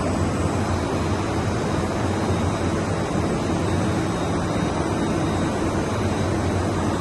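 Steady industrial machinery noise: a low hum with a faint thin high whine over it, without pauses or distinct knocks.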